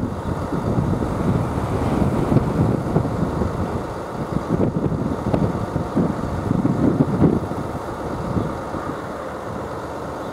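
Gusty wind buffeting the microphone, a low rumble that rises and falls unevenly and eases off over the last couple of seconds.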